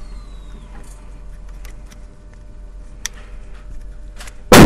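Faint clicks and taps of a magazine being fitted into an Edgun Leshiy 2 PCP air rifle, over a low steady hum. Near the end a sudden, very loud noise cuts in and holds.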